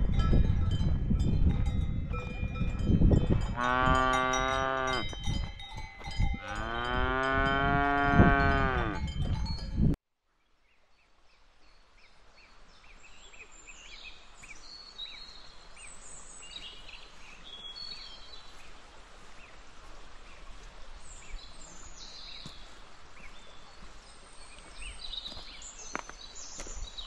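Cowbells ringing on cattle, with two long moos from a cow, the second longer than the first. About ten seconds in the sound cuts off abruptly to a faint steady hiss with small birds chirping now and then.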